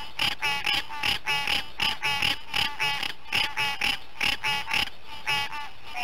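Green tree frog calling: a fast series of short calls, about three a second, broken by a brief pause or two.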